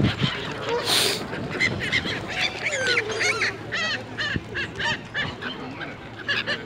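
A flock of geese honking with many short, overlapping calls, among other waterbirds crowding to be fed. A short rush of noise about a second in.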